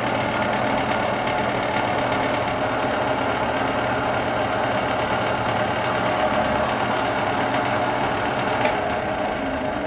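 Jet wood lathe running steadily with a wooden goblet spinning on it while beeswax is worked in with a rag; a short click near the end.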